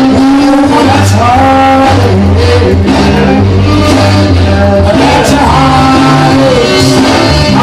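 Background music: an old rock and roll record playing, with a steady bass line, drums and a melodic lead.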